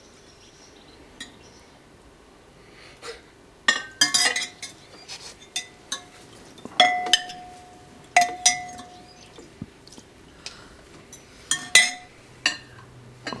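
A metal spoon clinking against a china soup plate as soup is eaten. A string of irregular clinks begins about four seconds in, and some ring on briefly.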